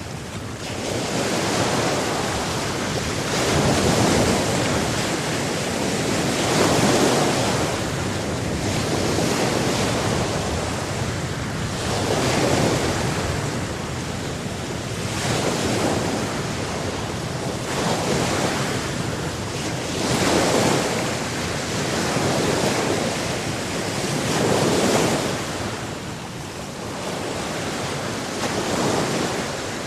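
Sea surf: waves breaking and washing up the shore, swelling and easing every three to four seconds, with wind on the microphone.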